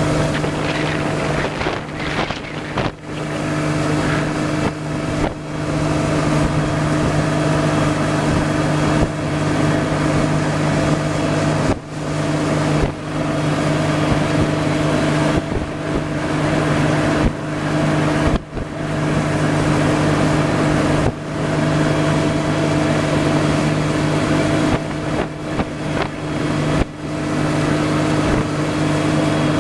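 Small boat motor running at a steady, unchanging speed as the boat cruises, a constant-pitched drone over a broad hiss of wind and water.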